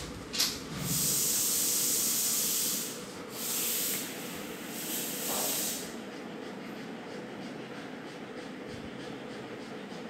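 A sharp click, then three bursts of hissing noise, the first about two seconds long and the others shorter, ending about six seconds in; a faint steady hum runs underneath.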